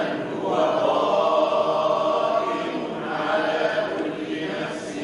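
A group of voices reciting a Quran verse together in unison, a chanted chorus with long held notes, repeating the verse after the teacher's recitation.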